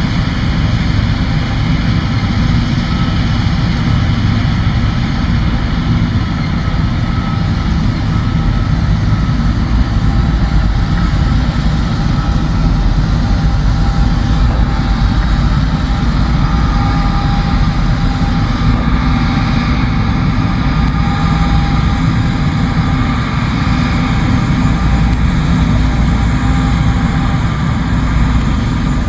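John Deere S-series combine running steadily while harvesting soybeans: a constant low engine rumble with a faint steady whine above it.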